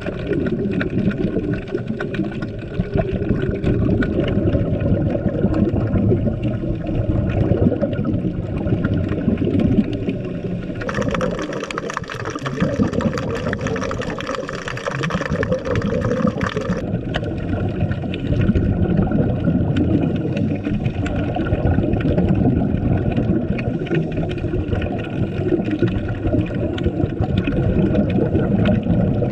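Underwater water noise heard through an action camera's housing during a scuba dive: a dense, low, churning rumble and gurgle. For about six seconds in the middle it turns brighter and hissier.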